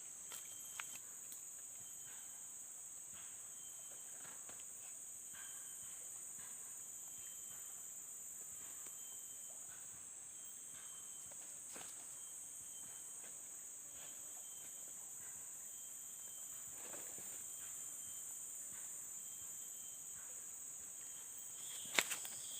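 Steady high-pitched chorus of insects, with a fainter short chirp repeating every second or two. A few sharp clicks sound near the end.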